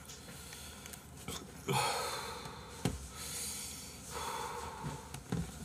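A man breathing out hard twice through the mouth, heavy huffing breaths of someone whose stomach hurts after very spicy food. A single light knock between the two breaths, as a computer keyboard is set down on the desk.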